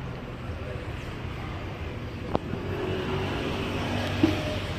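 Large diesel bus engine running steadily, with a single sharp click a little over two seconds in.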